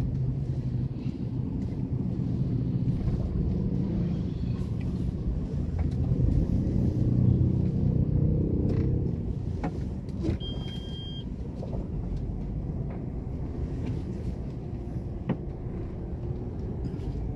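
Low rumble of a moving vehicle, swelling a few seconds in and easing after about ten seconds, with a short electronic beep just past the middle.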